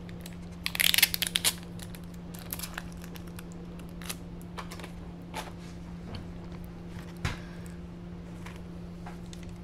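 A crispy fried chicken finger being torn apart by hand close to the microphone: a burst of crackling crunch about a second in, then scattered small crackles. A steady low electrical hum runs underneath.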